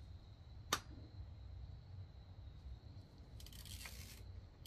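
Hand tools working the cylinder-head nuts of a motorcycle engine. There is one sharp metal click under a second in, then a short rasping burst about three and a half seconds in and another at the end.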